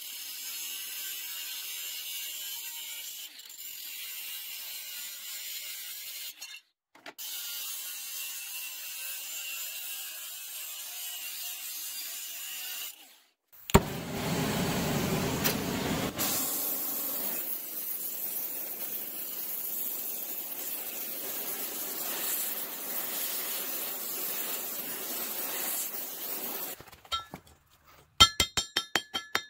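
Angle grinder with a cutting wheel cutting through a steel lawn mower blade, a steady high grinding with two short pauses. About 14 s in a torch lights with a sharp pop and burns with a louder, steady rushing of flame. Near the end a hammer starts striking the red-hot blade on a steel rail anvil, about five quick ringing blows a second.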